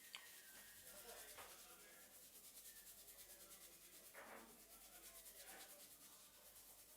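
Faint rubbing of hands on hair and scalp during a head massage, in quick repeated strokes.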